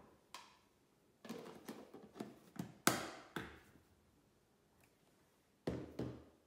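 Spice containers and a spoon being handled while dry seasonings go into a marinade: a run of light clicks and knocks from about one to three and a half seconds in, the loudest near three seconds, then two more near the end.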